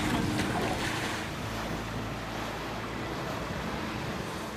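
Sea water rushing and splashing past a sailing yacht's hull and wake, with wind: a steady noise that eases over the first second and then holds level.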